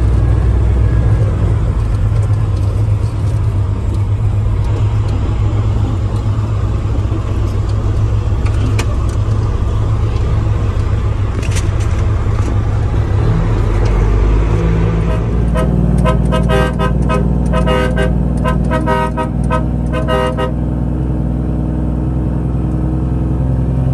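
Heavy truck engine running steadily. In the second half a vehicle horn toots rapidly over and over for about five seconds.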